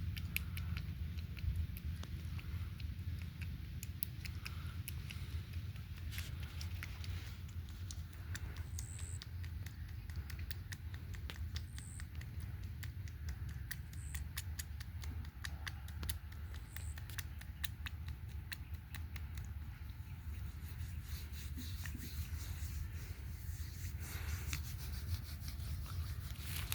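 Hands rubbing and kneading oiled skin in a heavy-oil massage, with many small sharp wet clicks and slaps, over a steady low hum.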